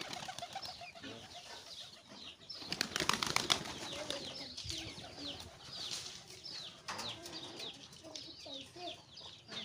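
A pigeon's wings clapping and flapping as it flies up, loudest about three seconds in. Short, high, falling chirps from other birds go on throughout.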